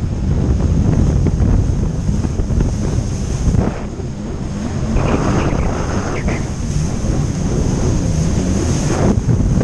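Wind buffeting the microphone of a moving jet ski, over the watercraft's engine and rushing water.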